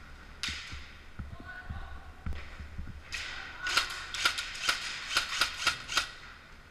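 Airsoft rifle shots: a single sharp crack about half a second in, then a rapid, slightly irregular string of about ten sharp cracks over a couple of seconds.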